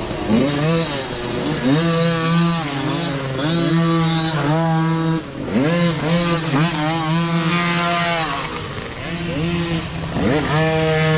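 Small micro dirt bike engines revving, their pitch climbing and dropping again and again as the riders open and close the throttle, over a steady engine drone.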